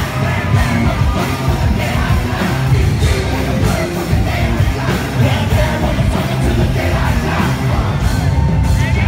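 Live rap music played loud through a concert PA, heard from within the audience: a heavy bass-and-drum beat with vocals over it.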